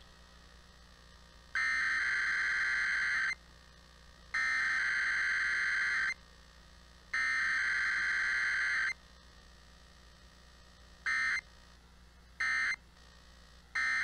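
Emergency Alert System SAME data bursts encoding a Required Weekly Test: three loud bursts of buzzing data tones, each nearly two seconds long with about a second between them, then three short end-of-message bursts about a second and a half apart, the last right at the end.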